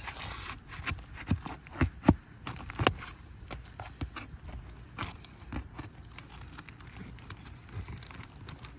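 Crowbar prying roofing nails out from under asphalt shingles: irregular metal clicks and knocks, a few sharper ones in the first three seconds and another about five seconds in.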